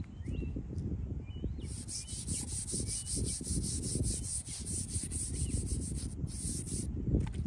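Stiff-bristled scrub brush scrubbing a headstone in quick back-and-forth strokes, about five a second, starting about two seconds in and stopping near the end. Birds chirp briefly near the start.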